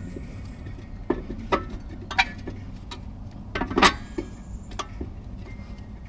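A handful of sharp metallic clicks and knocks, the loudest a cluster about four seconds in, from tools working on a Jeep Liberty's rear brake caliper as its piston is pushed back with an old pad. A steady low hum runs underneath.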